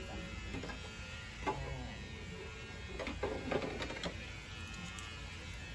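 Scattered clicks and light metal knocks from the parts of a small candy vending machine being handled as it is opened, over a low steady hum.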